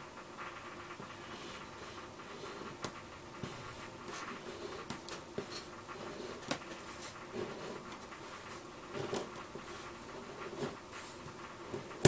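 A folding pocketknife blade sawing and scraping through a cork stopper, making a quiet, irregular scratching with small clicks.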